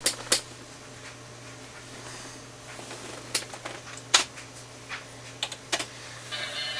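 A handful of sharp, irregularly spaced clicks and taps over a faint steady hum, like small hard objects being handled; music comes in near the end.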